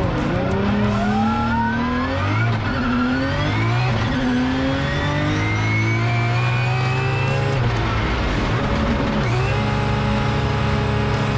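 Drift car engines revving hard, the pitch climbing in repeated sweeps as they accelerate, then held at a steady high pitch near the end.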